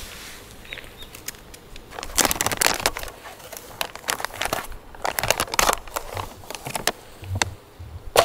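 Plastic and foil packaging crinkling in several bursts as hands handle a self-heating meal pouch and its heating-pack bag, with a sharp snap near the end.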